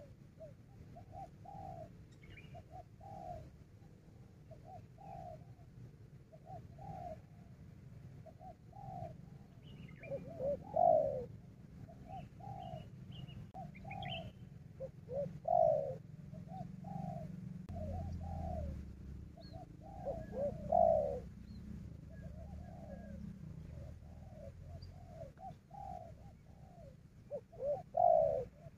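Spotted doves cooing: a steady run of repeated coo phrases, with a louder, nearer phrase roughly every five seconds. Small birds chirp faintly above the coos.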